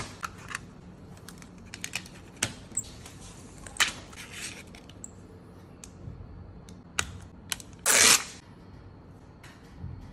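Hard clear-plastic packaging of a screen-protector kit being handled: scattered light clicks and taps as the plastic installation frame is lifted out and moved, with one short, louder scrape of plastic about eight seconds in.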